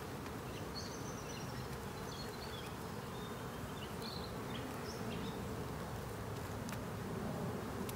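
Honey bees buzzing from an open hive, a steady hum. Faint high chirps sound over it in the first half, and a couple of light clicks come near the end.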